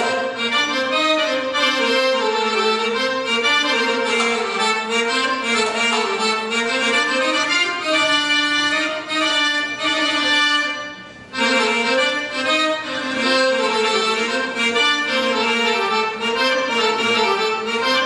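Instrumental music for a Ghawazee dance, with a sustained, wavering melody line over the accompaniment. It drops out for a moment about eleven seconds in, then resumes.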